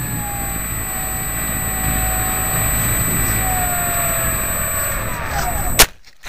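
Wind rushing over the microphone of a keychain camera carried on a 70 cm Lazy Bee RC model plane as it flies low, with a faint whine that wavers in pitch. Near the end there is one sharp thud as the plane hits the grass, and the rushing stops.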